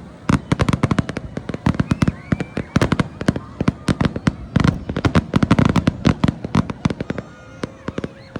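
Fireworks going off in a dense, irregular barrage of sharp cracks and bangs, many a second, thinning out near the end.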